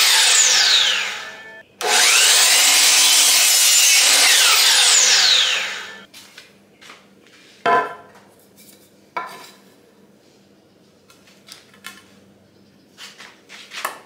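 DeWalt sliding compound miter saw cutting a wooden board for the 45-degree ends of a support brace. One cut winds down in the first second with a falling whine. The saw starts again about two seconds in, cuts, and spins down the same way about halfway through. A few wooden knocks follow as the cut pieces are handled.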